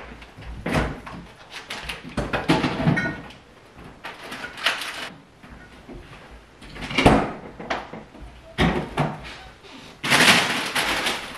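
Groceries being put away in a kitchen: a string of separate knocks and clatters as doors and drawers open and shut and items are set down, with a longer, louder burst of noise near the end.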